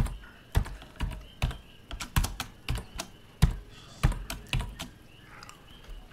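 Computer keyboard typed on slowly: about a dozen separate keystrokes roughly half a second apart, stopping about five seconds in.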